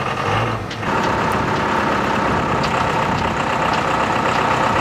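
Mercedes OM636 diesel engine, slow to start and helped by its glow plugs, catching about a second in and then running steadily.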